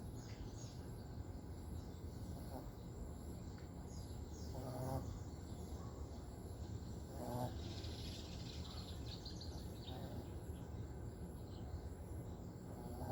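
Sleeping dog snoring, a short snore every two to three seconds.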